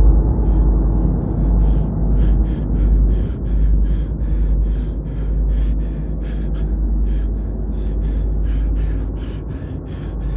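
A person running and panting hard, quick rasping breaths at about three a second, over a steady low rumble on the microphone.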